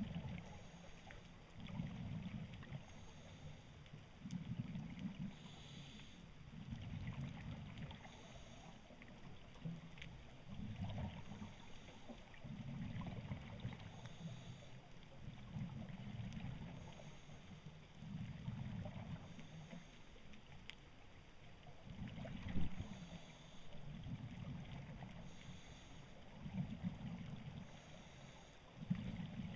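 Scuba breathing through a regulator: exhaled bubbles rumble in low, regular surges about every two seconds, with a faint hiss between them.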